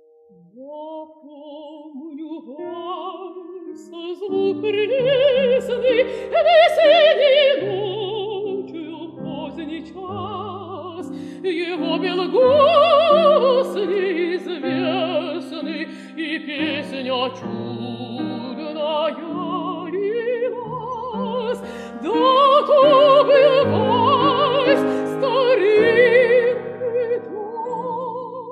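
Mezzo-soprano voice singing a Russian romance in waltz time with a wide vibrato, accompanied by grand piano. The voice swells to loud held notes several times.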